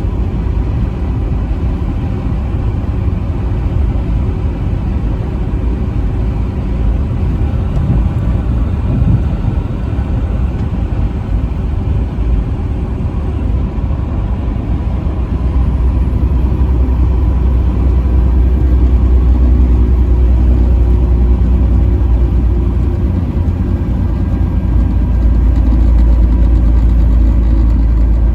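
Truck driving on the highway: steady low engine and road rumble, growing a little louder about halfway through.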